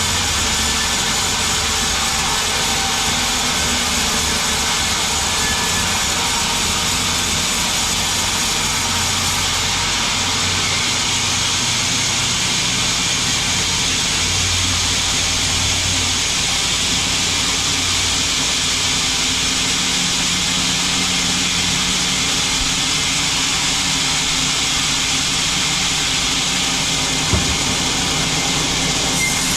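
Sawmill machinery running steadily: a constant low engine drone under an even hiss, with one short knock near the end.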